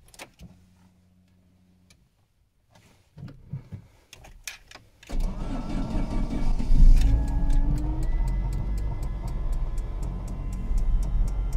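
GM Corsa Classic's petrol/ethanol engine cold-starting on ethanol fuel: a key click and a short hum, then about five seconds in it cranks and catches, flares up, and settles into a fast cold idle with a rapid, even ticking.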